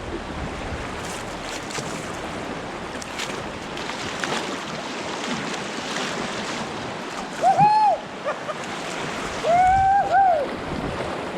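Fast spring-flood river current rushing through rapids, a steady hiss of whitewater. Two short, high shouts from a person break through it: one at about seven and a half seconds, a longer one at about ten seconds.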